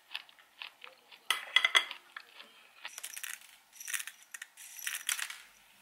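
A quick run of clinks of metal cutlery on a ceramic plate about a second and a half in. This is followed by the rattling and scraping of dry granola being tipped and scraped with a utensil from a small ceramic dish into a glass jar of smoothie.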